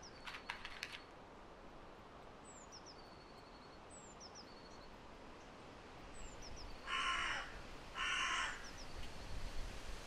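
Hooded crow cawing twice, two short harsh caws about a second apart near the end. Earlier, a small bird gives a repeated high, thin falling call in the background.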